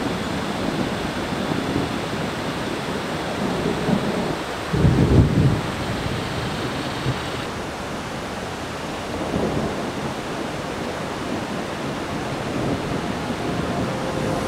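Thunder from an approaching thunderstorm rumbling over a steady rush of wind and light rain, the loudest low rumble coming about five seconds in and lasting about a second, with softer rolls around it.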